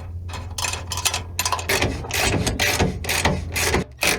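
Hand ratchet wrench clicking in a quick even rhythm, about four clicks a second, as nuts are run down onto skid plate bolts.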